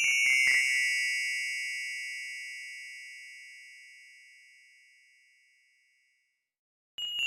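A fast descending run of bright chime notes ends just after the start, then rings out and fades slowly over about five seconds. After a second of silence, another quick descending run of chime notes begins near the end.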